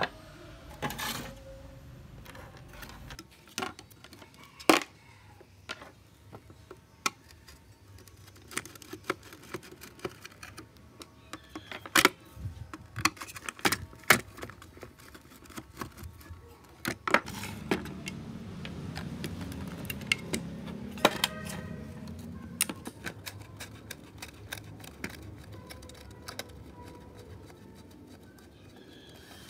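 A screwdriver working on a metal security-camera housing and its loose parts on a wooden table: scattered sharp metallic clicks, taps and knocks at irregular intervals.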